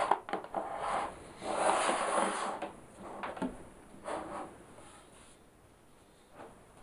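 Handling noise from an M-Audio AV40 studio monitor being slid and turned on a tabletop: a scraping rub of the cabinet on the table about a second and a half in, with a few light knocks before and after, then quieter.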